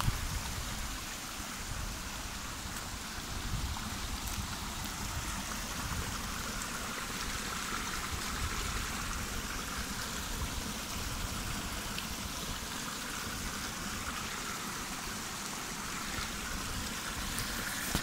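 Small rocky stream flowing, a steady rush of running water.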